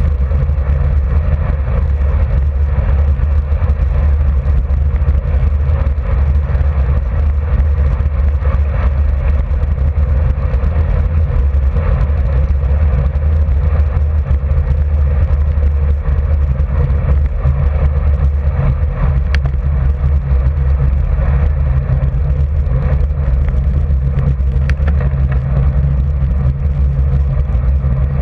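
Wind rushing over the microphone of a camera mounted on a road bike riding at about 40 km/h: a steady, loud, low rumble.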